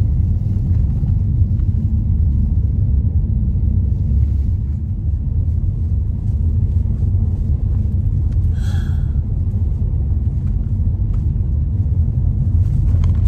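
Steady low rumble of car road noise heard from inside a moving car's cabin. A brief higher-pitched sound occurs about two-thirds of the way through.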